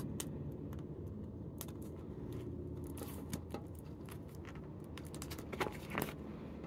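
Clear plastic cash-envelope pouches in a ring binder being leafed through and handled, giving scattered light clicks and crinkles, a little louder about three seconds in and again near the end, over a low steady hum.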